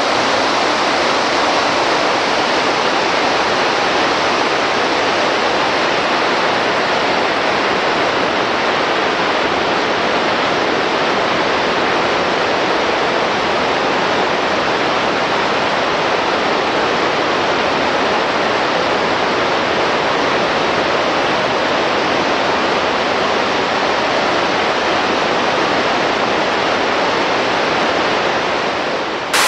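Waterfall: a steady, loud rush of falling water that dips slightly in level near the end.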